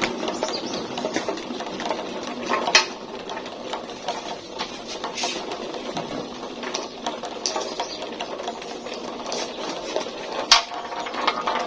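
Marbles rolling and clattering down a plastic marble run track: a continuous rattle of many small clicks, with two sharper clacks, one about a quarter of the way in and one near the end.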